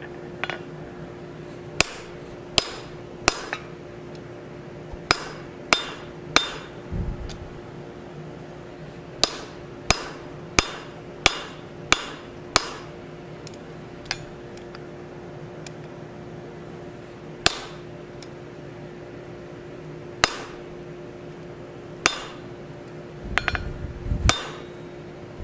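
Hammer blows on hot iron on an anvil, straightening a forged oak-leaf piece: sharp, ringing strikes in short runs with pauses between, and a few duller thumps near the end, over the steady hum of the forge.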